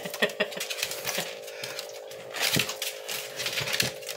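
Dogs moving about on a tile floor: irregular clicks and light metallic taps from claws and collar tags, with a steady hum underneath.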